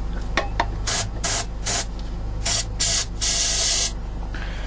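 Aerosol can of starting fluid sprayed in six short hissing squirts, the last one the longest, to help a boat engine start on a cold morning.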